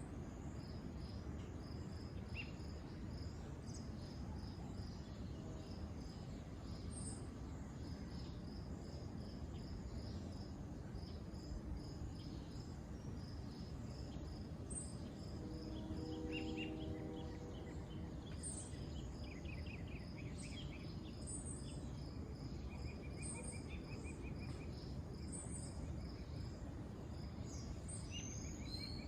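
Crickets chirping steadily in a regular high-pitched rhythm, with other insects trilling in short pulsed bursts over a steady low background rumble. A brief low tone sounds about halfway through.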